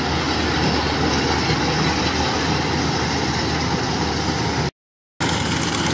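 Kubota DC105X combine harvester's diesel engine running steadily under load as it cuts rice. The sound drops out completely for about half a second near the end, then resumes unchanged.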